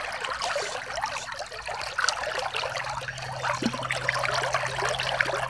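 Shallow creek water trickling and burbling over gravel close to the microphone, a steady dense patter of small bubbling sounds.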